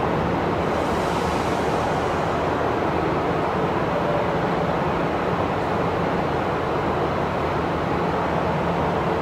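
Two-car KiHa 40 diesel railcar set pulling away, its diesel engine running under power, over a steady rushing noise. A brief hiss rises and fades about a second in.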